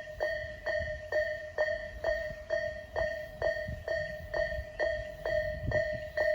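Japanese railway level-crossing alarm with the electronic 'Isesaki-type' bell sound, striking evenly about twice a second. Each strike is a short falling chirp that settles onto a high and a lower tone together, over a low rumble.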